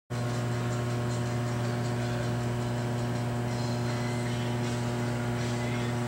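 Steady low electrical mains hum, one constant low tone with its overtones, unchanging in level.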